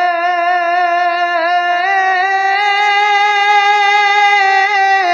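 A singer holding one long note with a slight vibrato and no accompaniment to be seen. The note steps up in pitch about two seconds in, a drawn-out phrase of a Bengali devotional song.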